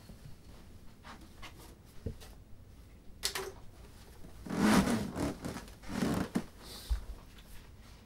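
A person climbing onto a bed: light steps, then sheets, pillow and mattress rustling as he settles down, loudest past the middle, with a soft low thump near the end.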